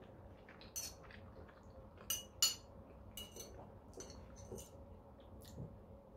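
Metal fork clinking and scraping against a plate while cutting a piece of boiled pasta, a string of short sharp clicks with the loudest pair about two seconds in.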